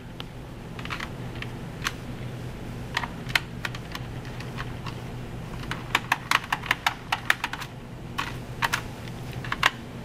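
Light, irregular clicks and taps of hands handling a laptop's plastic bottom case, coming quicker and closer together in the second half, over a steady low hum.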